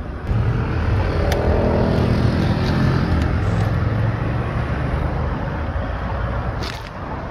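A car engine running close by, over general city street traffic noise. It gets louder about a quarter second in and eases off near the end.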